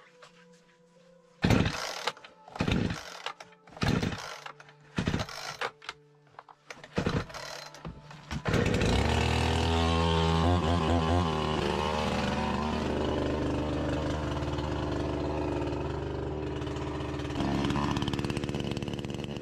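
Two-stroke chainsaw being pull-started from cold. About six pulls on the starter cord each give a short rasping burst without the engine catching. About eight seconds in it fires and keeps running, unevenly at first, then settles into a steady idle.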